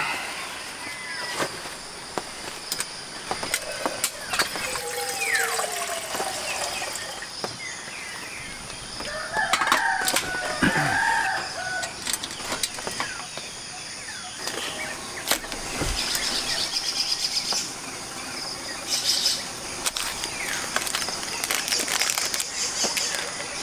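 Clinks and knocks of stainless steel camp cookware being handled at a portable butane stove. A rooster crows about ten seconds in, and near the end a paper coffee sachet is torn open with a rustle.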